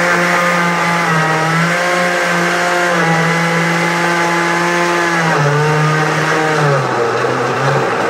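Countertop blender motor running at full speed, puréeing chunks of tomato, onion and chili with a little water. Its hum dips in pitch and recovers a few times as the chunky load hits the blades, most clearly about five seconds in.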